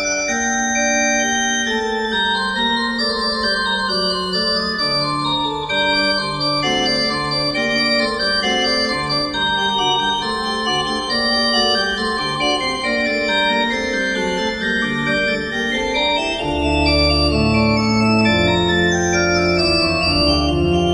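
Organ music: held chords changing every second or so, with deeper bass notes coming in about three-quarters of the way through.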